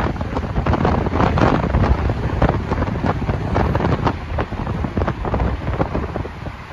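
Wind buffeting the microphone of a moving motorcycle, a loud gusty rush with road noise underneath, easing a little in the last couple of seconds as the bike slows behind traffic.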